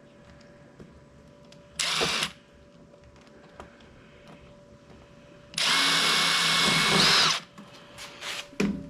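Power drill driving a wood screw in two runs: a brief burst about two seconds in, then a longer run of nearly two seconds around the middle.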